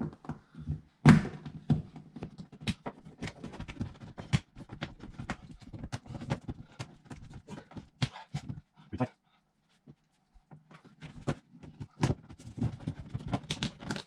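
Car door panel being worked off its fastenings: a rapid run of irregular clicks, knocks and rattles, with one sharp loud knock about a second in and a short pause near the end.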